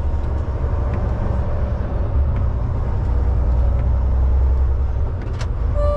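Truck engine running with a steady low rumble, heard from inside the cab. There is one sharp click about five and a half seconds in, and a steady electronic warning tone starts just at the end.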